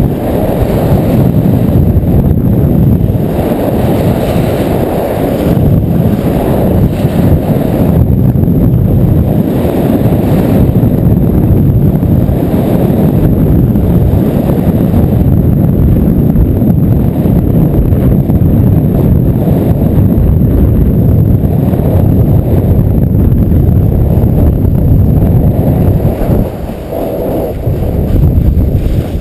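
Wind buffeting the microphone of a camera carried by a skier moving fast downhill: a loud, steady, low rumble. It drops off briefly near the end.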